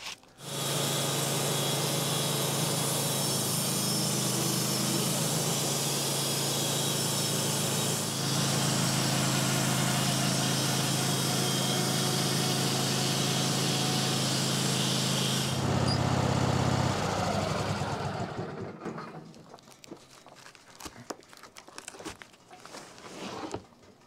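Sawmill running through a leveling cut in a knotty pine log on a freshly changed blade: a steady motor hum under the hiss of the blade in the wood. About 15 seconds in, the cutting noise stops as the blade clears the log. The motor runs on briefly, then winds down with falling pitch, leaving a few light knocks and clicks.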